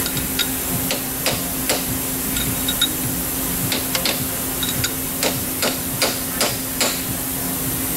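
Small hammer tapping on a steel bolt held against a shaft seal, driving the seal evenly into its bore in a gearbox housing. A run of light, irregular metallic taps, roughly two a second.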